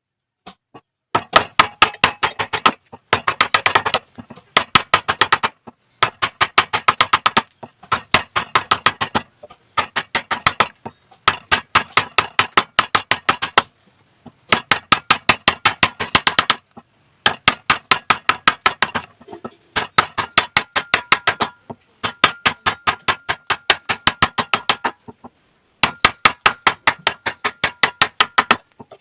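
A wood chisel struck with a hammer in quick runs of sharp taps, about seven a second, each run lasting a second or two with brief pauses between, chopping out a cross joint. A faint ringing tone sounds under the taps in the later runs.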